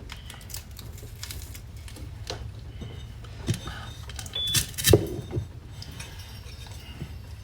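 Small clicks and clinks of cups and utensils being handled while coffee is being made, with louder knocks about three and a half and five seconds in, over a low steady hum.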